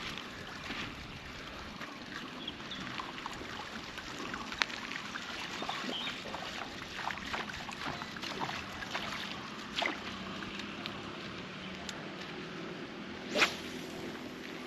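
River water trickling and lapping, with scattered small clicks and a sharper knock near the end.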